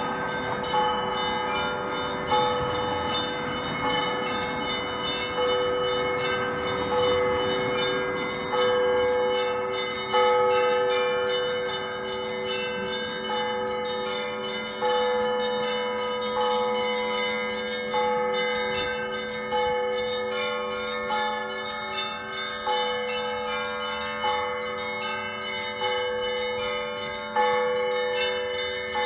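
Russian Orthodox church bells ringing a continuous peal (kolokolny zvon): several bells of different pitches struck again and again in a rhythmic pattern, their tones ringing on and overlapping.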